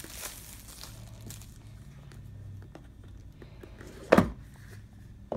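Plastic shrink wrap crinkling as it is stripped off a cardboard board-game box, fading to quiet handling. About four seconds in, a single loud thump as the box is handled.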